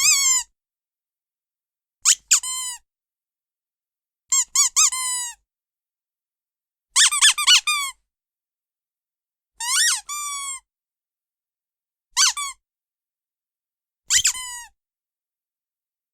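Rubber squeaky dog toy squeezed over and over, giving short, high, pitched squeaks in separate bursts about every two seconds. Some bursts are a single squeak; others are two or three quick squeaks, some ending in a falling wheeze.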